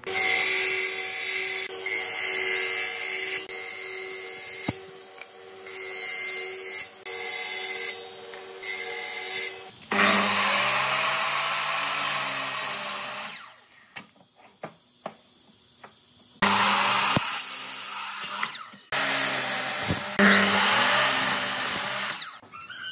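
A power tool runs in about seven short bursts of steady pitch. Then a sliding compound miter saw is switched on three times, each run a few seconds long, cutting through wood.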